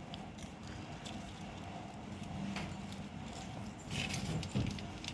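A cupcake being handled and pulled out of its cup: faint rustling and light clicks, with a louder brief rustle about four seconds in and a soft bump just after.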